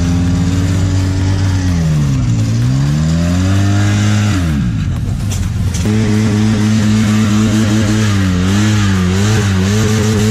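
Quad bike engines running, the pitch sinking and climbing again about two seconds in and dropping off near four and a half seconds in. About six seconds in the sound switches abruptly to a steadier engine note that wavers slightly.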